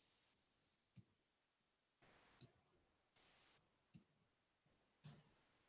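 Four faint computer mouse clicks, spaced about a second or so apart, over near silence.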